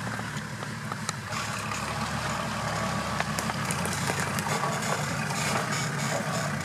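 Off-road 4x4 engine idling steadily, with a few light clicks and ticks scattered over it.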